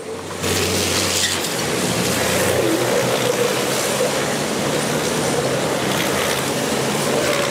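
Several diesel race trucks driving past in a close pack, their engines running loud and steady. A deep drone drops away about two and a half seconds in.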